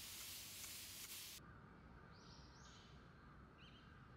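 Spray bottle misting plant leaves: a steady fine hiss that stops abruptly after about a second and a half. After that come a few faint, short bird chirps.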